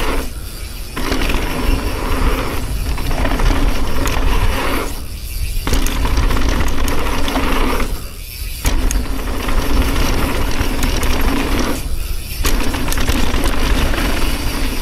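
Mountain bike riding fast down a dirt jump trail: knobby tyres rolling over dirt with the bike rattling, and wind on the microphone underneath. The tyre noise drops away for about half a second several times.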